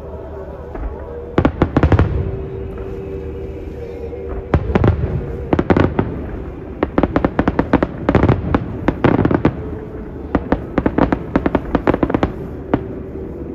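Aerial firework shells bursting overhead: a few separate bangs in the first six seconds, then a dense run of rapid bangs and crackles from about seven seconds in until shortly before the end.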